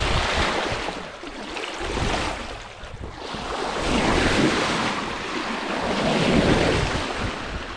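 Bow wash of a sailboat's hull cutting through the sea, water rushing and splashing, with wind buffeting the microphone. The wash swells about four seconds in and again a little after six seconds.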